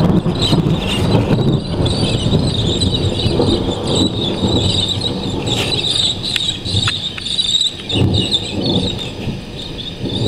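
Low thunder rumbling on after a loud thunderclap, swelling again about eight seconds in. Over it, birds in a tree keep up a steady high chattering, stirred up by the crack.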